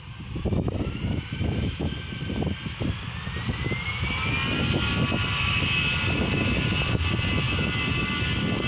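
Airbus A320 jet engines spooling up for the takeoff roll: a whine that rises in pitch over about the first four seconds, then holds as a steady high whine over a low rumble.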